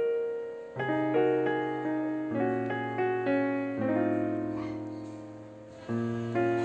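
Background piano music, notes struck one after another over slowly changing bass notes.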